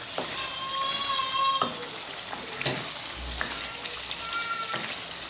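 Chicken karahi sizzling and frying in oil in a karahi while a spatula stirs it, knocking and scraping against the pan about four times.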